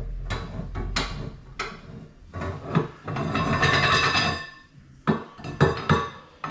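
Steel radiator key knocking and clinking against cast iron radiator sections as it is handled and worked, with a longer scrape about three seconds in.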